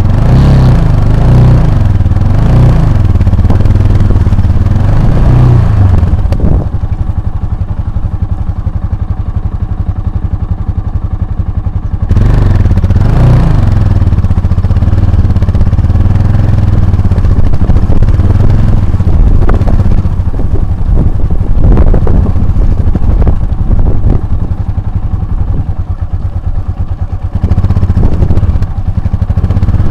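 Motorcycle engine running hard off-road, revving up and down through the first few seconds. It drops to a lower, quieter note for several seconds in the middle, then revs up again.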